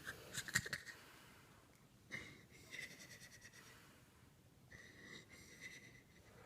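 Faint breathing of a sleeping man, with a thin whistling wheeze on two breaths, one about two seconds in and one near the end. A few quick clicks come right at the start.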